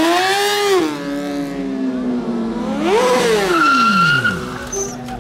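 Sport motorcycle engine revving hard during a stunt drift, with the rear tyre squealing on asphalt. The revs climb and ease off in the first second, rise sharply again about 3 s in and drop away, then the engine runs steadily at lower revs near the end.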